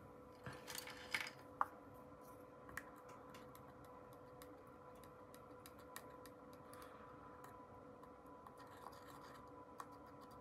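Faint scratching and rubbing with a few light clicks from small metal parts of a disassembled folding knife being worked on, over a steady faint hum.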